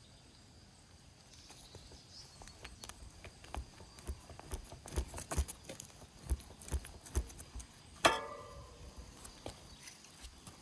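Old mountain bike ridden on a soft, underinflated rear tire: irregular knocks and rattles, with heavier thumps in the middle and one sharp metallic clank about eight seconds in that rings briefly.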